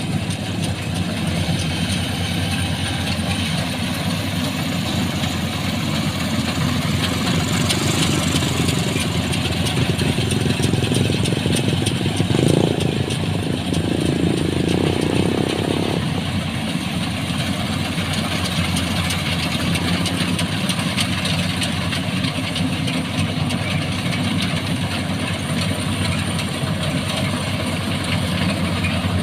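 Rice combine harvester running steadily, its engine and machinery giving a continuous even drone.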